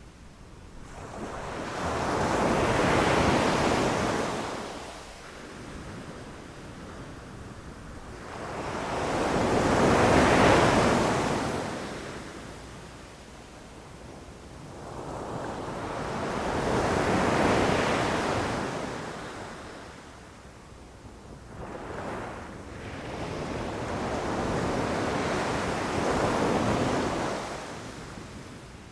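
Ocean surf: waves breaking and washing ashore one after another. Four swells each rise and fade over a few seconds, about seven seconds apart, and the last is longer.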